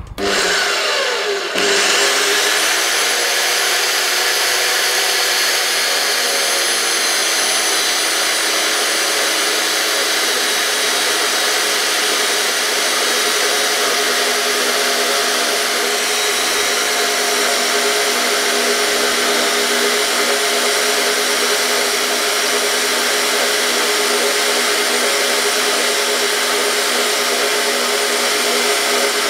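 Metal-cutting bandsaw switched on, its motor and blade spinning up over the first second or two, then running steadily with a whine as the blade slowly cuts through a thick aluminium plate.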